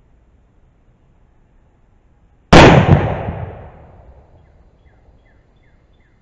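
A single shot from a .54-calibre Lyman Plains Pistol, a percussion-cap black-powder muzzleloader, comes about two and a half seconds in. Its sharp report dies away over about a second and a half.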